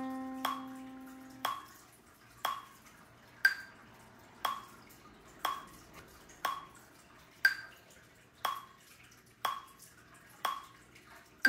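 Metronome clicking steadily at about one beat a second, with a higher, louder accented click on every fourth beat. A sustained pitched note held over from just before fades out about a second and a half in.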